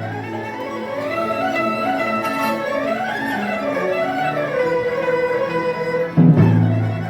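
Elementary-school Chinese traditional orchestra playing: bowed strings carry a melody that rises and falls over held low notes, with a loud accented low chord about six seconds in.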